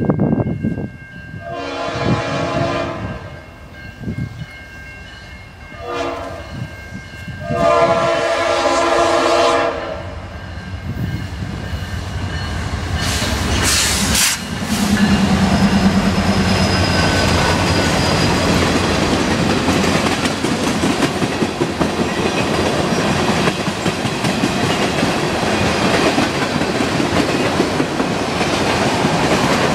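Norfolk Southern freight train's air horn sounding three blasts, long, short, long, as it approaches. About halfway through the locomotive passes close by, followed by the steady rumble and wheel clatter of tank cars rolling past.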